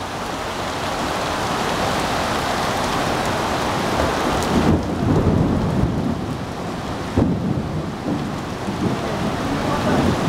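Heavy rain pouring onto a flooded road, with cars ploughing through the floodwater. A stronger low rumbling surge comes in about halfway through.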